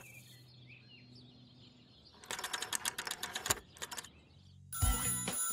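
A telephone bell ringing in a rapid trill for about a second and a half, a little after midway. Near the end, music with a beat comes in and is louder than the bell.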